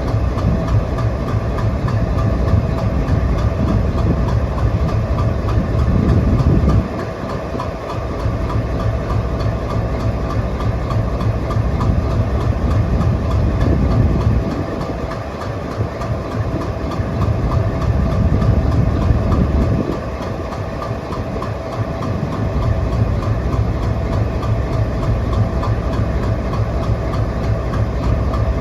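Diesel locomotive engine running with a steady low rumble and a constant whine. The level drops briefly about 7, 14 and 20 seconds in.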